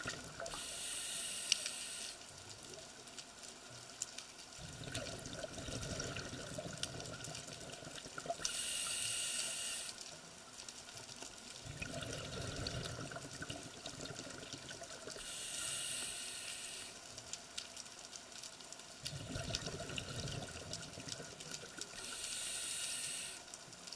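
Scuba diver breathing through a regulator underwater, in a slow regular rhythm about every seven seconds: a short hiss of inhalation, then a longer low rumble of exhaled bubbles.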